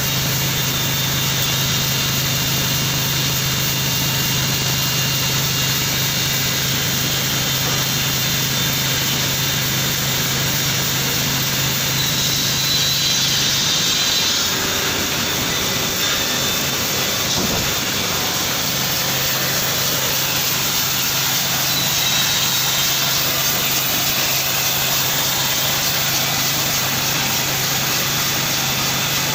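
Woodworking production machinery running steadily: a continuous low motor hum under an even hiss. The hum drops away for a few seconds around the middle, then returns.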